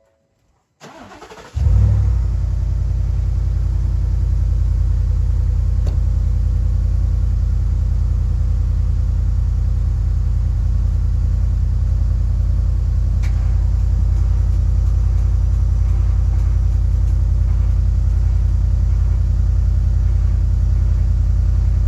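A truck engine cranks briefly, catches about a second and a half in, and settles into a steady idle, running as the donor vehicle for a jump start through jumper cables.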